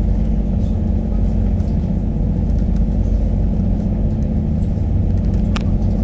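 Steady low rumble of a moving boat: engine drone mixed with the rush of water churning along the hull.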